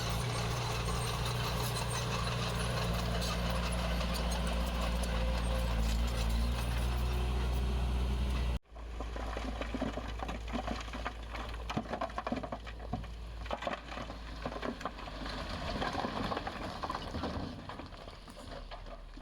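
Heavy diesel earthmoving machinery: an engine runs steadily for about eight seconds, then cuts off abruptly to quieter, irregular clanking and rattling of machinery and stone.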